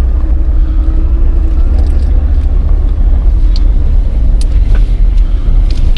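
Steady low engine and road rumble inside a small car's cabin while driving, with a few faint clicks scattered through it.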